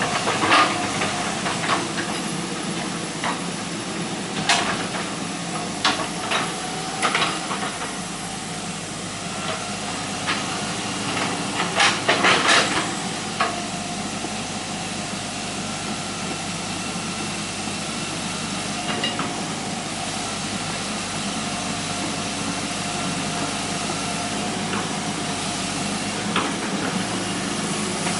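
Hitachi EX120 hydraulic excavator's diesel engine running steadily under working load, with a steady whine that shifts in pitch partway through. Scattered knocks and clanks from the bucket and tracks, including a cluster about twelve seconds in.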